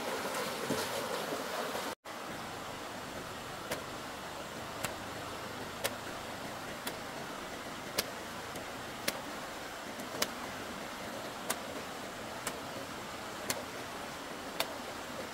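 Sharp light taps, about one a second and evenly spaced, over a steady background hiss. A brief dropout about two seconds in ends a louder rushing sound.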